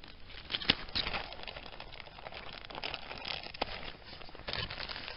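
Plastic freezer bag crinkling and rustling as it is handled and packed, with a few sharp clicks and taps.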